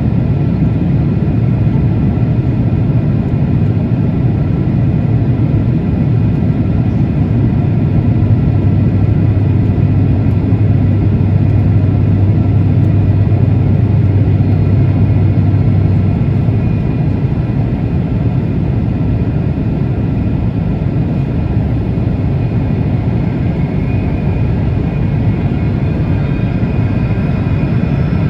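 Steady jet airliner cabin noise on approach: a loud, low engine and airflow rumble with several faint high engine whine tones above it, swelling slightly around the middle.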